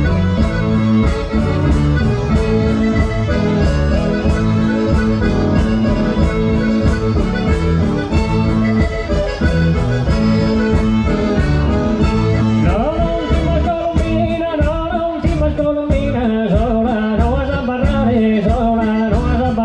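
Live Sardinian folk dance music for a ballittu, led by accordion over a steady even beat. A voice comes in singing about two-thirds of the way through.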